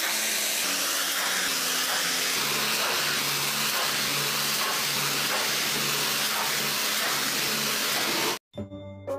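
Pressure-washer jet spraying water onto a car's muddy door panel: a steady hiss that cuts off suddenly about eight seconds in.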